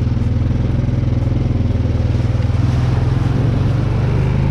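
An engine running steadily, with a fast, even firing pulse and a slight change in pitch near the end.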